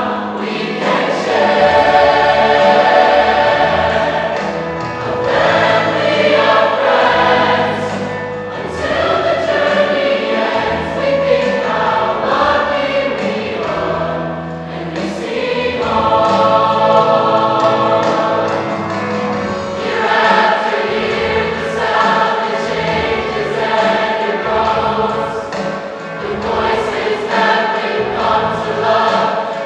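Large mixed choir of men and women singing together in full harmony, its phrases swelling and easing every few seconds.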